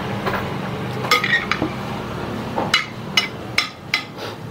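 Metal spoon and fork clinking against a plate while eating: a few sharp clinks about a second in, then four more spaced about half a second apart.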